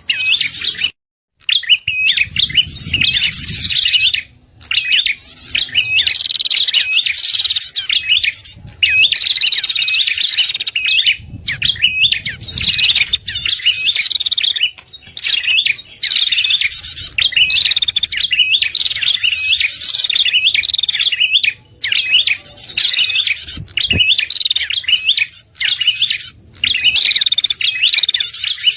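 Prenjak calls used as a bird lure: rapid high chirping phrases repeated one after another with brief gaps, with a short break about a second in.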